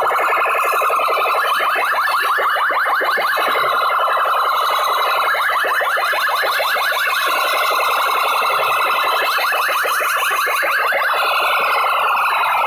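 A bank of horn loudspeakers on a DJ sound-box rig blaring a very loud, distorted siren-like electronic sound. It is made of rapid rising sweeps repeating many times a second and keeps a steady level throughout.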